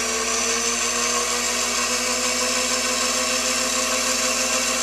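McMillan Electric 90-volt DC treadmill motor running free near its top speed, its bare shaft spinning with a steady whine. The pitch rises slightly in the first second, then holds.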